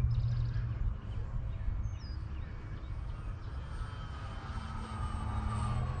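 Electric RC plane's motor and propeller droning high overhead, a faint whine that bends gently in pitch over the last few seconds, with wind rumbling on the microphone.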